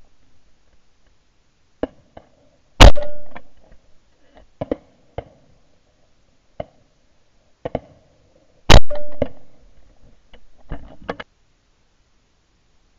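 Two shotgun shots about six seconds apart, fired with 36 g steel shot cartridges, each a sharp blast with a short fading tail. Light clicks and knocks of gun handling come between and after them.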